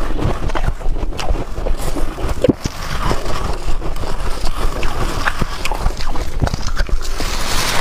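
Close-miked freezer frost being crunched: a dense, irregular run of crisp crunches and crackles.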